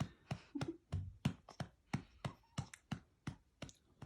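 A hand patting a baby's back in a steady rhythm, about three pats a second, to bring up a burp.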